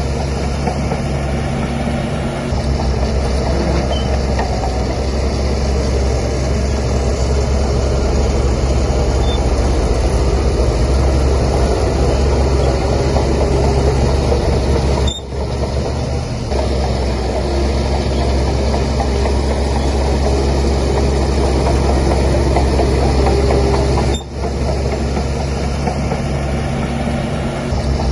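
Heavy diesel engine of a Shantui DH17C3 bulldozer running steadily while it works. The sound breaks off for a moment twice, around the middle and near the end.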